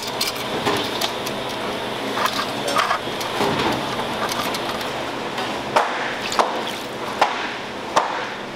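Water running and splashing into a stainless steel bowl. In the last few seconds there is a series of sharp knocks, one every second or less.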